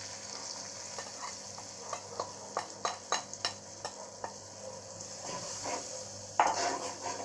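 Oil and onions sizzling in a kadai as ground spices and green chillies are tipped in for frying the masala, with a quick series of spoon clinks about two to four seconds in. Near the end a spatula scrapes and stirs the spices through the pan, louder than the rest.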